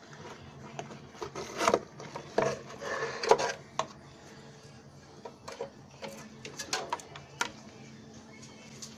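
Irregular clinks and knocks of hard objects being handled, clustered in the first few seconds and again later, over a faint steady hum.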